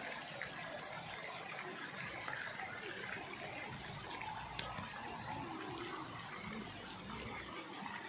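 Steady splashing of park fountain jets falling into a shallow pool.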